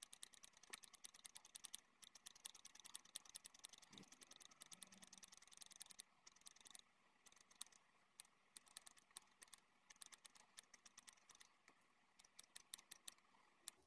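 Small haircutting scissors snipping into a lock of hair, point-cutting the ends. Faint, quick runs of crisp clicks with short pauses between them.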